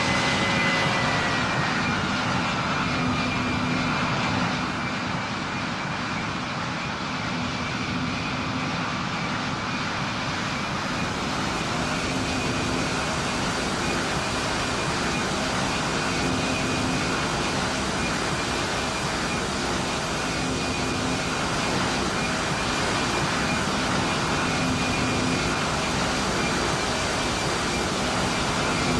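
Airplane engines running with a steady, loud drone and a few held tones. A cluster of higher tones glides down and fades out in the first second or two.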